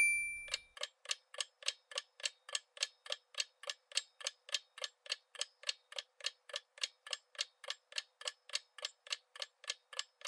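Countdown-timer sound effect: a clock ticking evenly, about three and a half sharp, thin ticks a second, with the tail of a short chime dying away at the very start.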